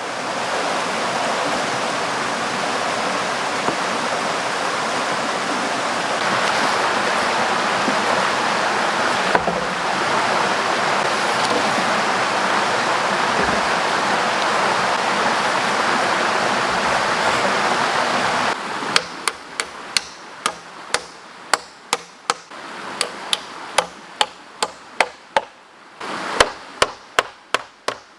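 River water rushing steadily. About two-thirds of the way through it gives way abruptly to a run of sharp strikes, about two a second, like a tool hitting wood.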